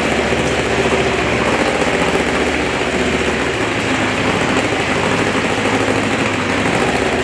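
Small boat's engine running steadily, with water rushing around the hull.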